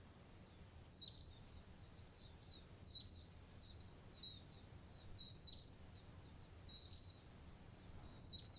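Partridge calling: quick clusters of short, high chirps that drop in pitch, repeated every second or so, over a faint low rumble of background noise.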